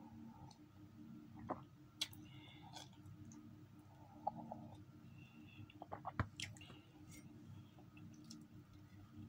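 Quiet mouth sounds of sipping hot coffee from a ceramic mug and swallowing, with a few sharp clicks. The loudest click comes about six seconds in.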